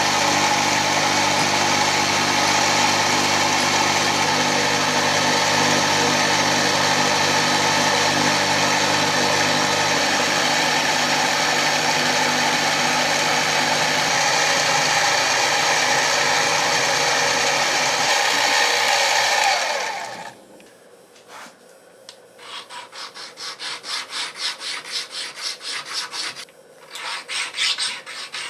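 Mini mill running with its end mill cutting into a metal V-block, then shutting down about two-thirds of the way through. After a short pause, a pocket sharpening stone is rubbed back and forth along the edge of the milled part in quick rasping strokes, several a second, with one brief break.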